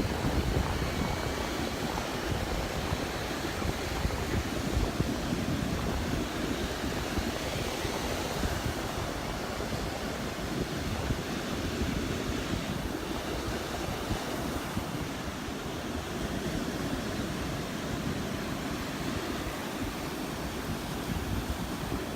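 Rough surf breaking steadily on the beach, with wind buffeting the microphone.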